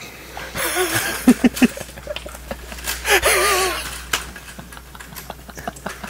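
Mahjong tiles clicking as a winning hand is laid open on the table, with short exclaiming voices and one drawn-out wavering cry about three seconds in.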